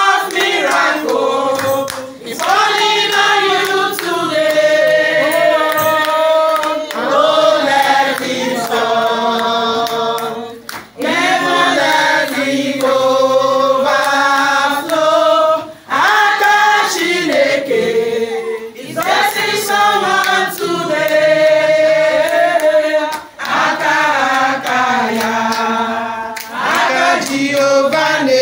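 A group of voices singing a praise song together, in held phrases broken by short pauses every few seconds.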